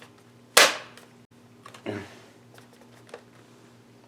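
A single sharp clack of a hard object striking the work surface about half a second in, followed by a softer knock around two seconds and a faint click a second later, over a low steady hum.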